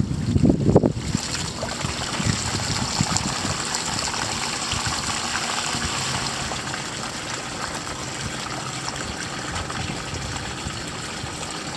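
Water draining out of a plastic backyard duck pond: a steady trickling, running water sound, with a brief louder low sound in the first second.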